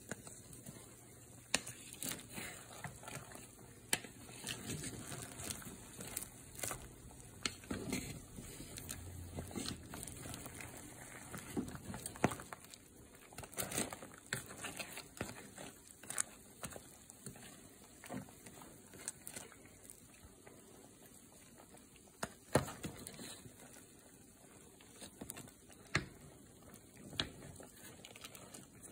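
Pot of crawfish boil at a rolling boil: steady bubbling with irregular sharp pops and clicks throughout.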